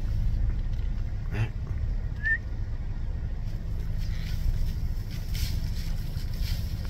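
Wind rumbling on the microphone, with crackling rustles of dry grass from about four seconds in and a single brief high chirp about two seconds in.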